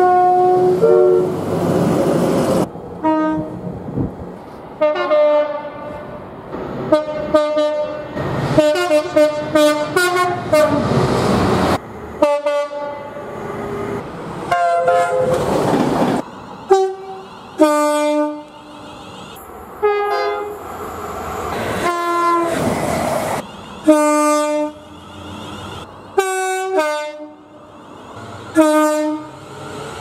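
A rapid run of train horn blasts from different British trains, edited back to back with abrupt cuts. Most are two-note soundings, one pitch then another, with the rumble and clatter of passing trains between them.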